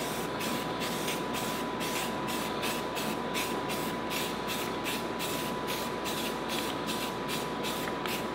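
Aerosol can of filler primer spraying in a continuous hiss as a light coat goes on, the hiss swelling and fading about three times a second as the can sweeps back and forth.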